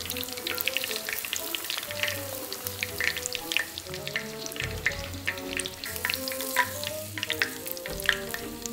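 Hot vegetable oil crackling and sizzling with many small pops as panko-breaded pork cutlets deep-fry.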